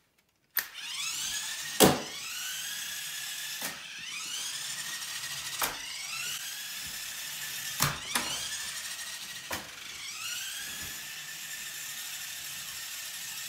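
A toy car's small gear drive whining as the LEGO Technic 8472 Street 'n' Mud Racer runs. About six times the whine rises quickly in pitch and then holds steady, and each restart opens with a sharp click.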